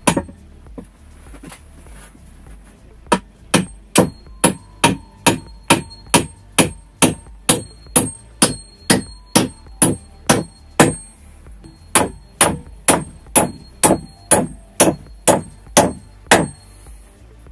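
Nails being hammered into a wooden board: a couple of blows at the start, then steady strikes about two a second, each with a short metallic ring, in two runs with a brief pause about eleven seconds in.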